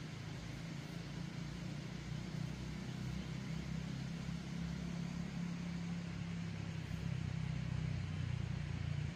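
A steady low motor drone with no break, growing slightly louder in the second half.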